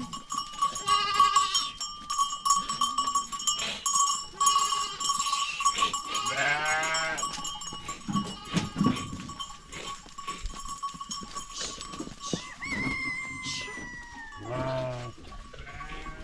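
Goats bleating several times among a herd, over the steady ringing and clinking of small bells worn by the animals.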